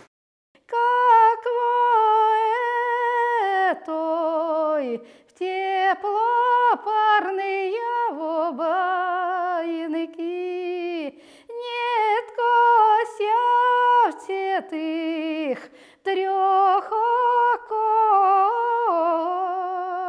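Unaccompanied solo female voice singing a slow traditional Pomor melody in long held phrases, wavering on the held notes. The phrases are broken by short pauses, and several end in a downward slide.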